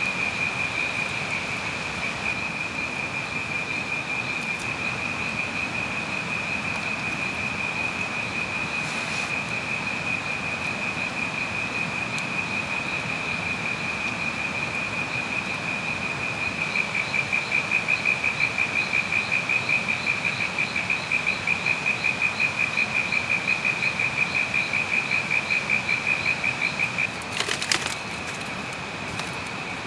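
Night insects chirring: a steady high-pitched tone that partway through swells into a louder pulsing trill of about four pulses a second, then drops back. There is a brief sharp crackle near the end.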